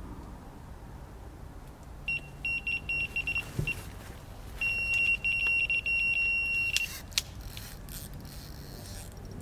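Electronic carp bite alarm sounding: a string of quick beeps, then a continuous high tone for about two seconds as a fish runs with the line. A sharp click follows just after the tone stops.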